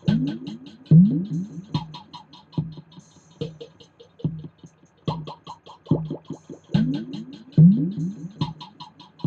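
Electronic music built on a loop: a low kick-drum thump about every 0.85 s, fast high ticking over it, and short pitched synth figures, the pattern repeating about every seven seconds.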